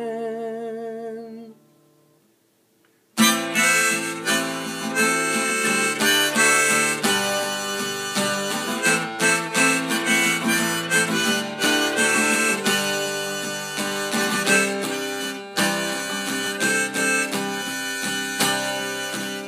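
Harmonica played over a strummed acoustic guitar in an instrumental break. A wavering held note opens it, then the music drops out for about a second and a half before harmonica and guitar come back in abruptly and play on.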